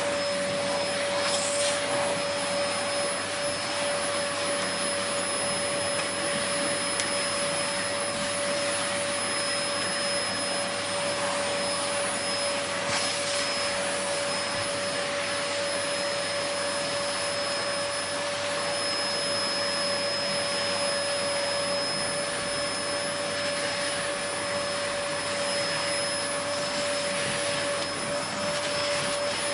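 Vacuum cleaner motor running continuously: a steady rushing hiss of air with a constant high whine.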